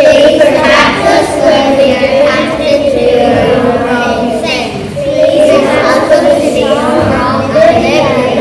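A class of young children singing a prayer together in unison, with long held notes in a slow melody.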